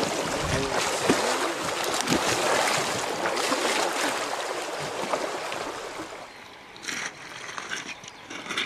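Hooked taimen thrashing and splashing at the surface of a fast river current, over rushing water. The splashing dies down about six seconds in.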